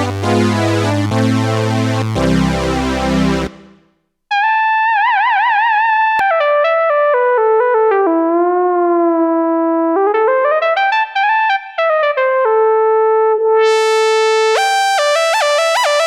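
Hammond SK PRO organ synthesizer playing preset sounds. A full chordal patch with bass stops about three and a half seconds in. After a short gap, a single-note lead line with vibrato and gliding pitch plays, and a bright, full chordal patch with a melody comes in near the end.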